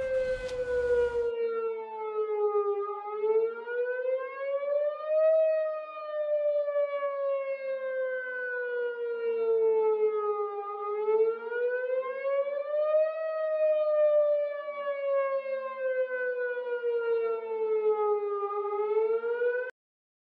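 Outdoor tornado warning siren wailing: one loud tone that slowly falls and rises again, about eight seconds per cycle. A brief rush of noise comes in at the start, and the siren cuts off abruptly near the end.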